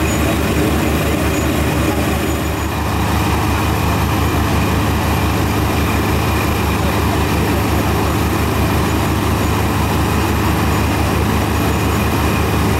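Dando Terrier drilling rig and its compressor running during angle air drilling: a steady, loud machine drone with an even, fast low pulse.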